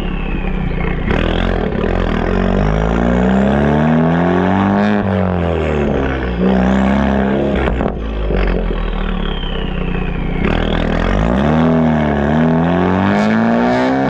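Mk3 Ford Focus ST's turbocharged 2.0-litre four-cylinder heard at the tips of its AWE aftermarket exhaust, accelerating through the gears. The pitch climbs and falls back at each shift, several times.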